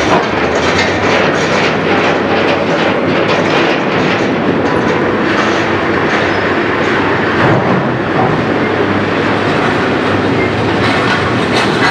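Old Mohr harbour crane (built 1976) working a coal unloading: loud, steady mechanical clattering and rattling over a low hum as it slews and lowers its grab bucket.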